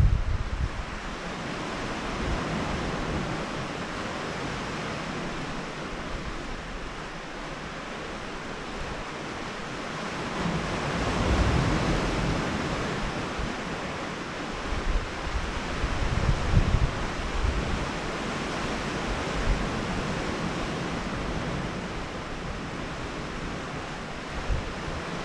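Sea surf washing against a rocky shore, a steady rushing that swells about ten seconds in. Wind gusts rumble on the microphone now and then.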